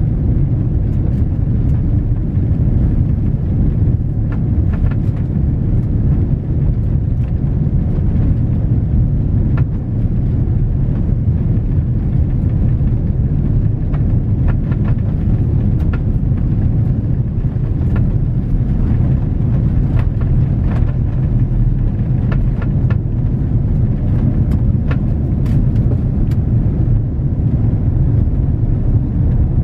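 Airbus A330-900neo cabin noise during the take-off run, heard from inside the cabin: the Rolls-Royce Trent 7000 engines at take-off power give a loud, steady low rumble, with faint clicks and rattles over it, as the airliner runs down the runway and lifts off.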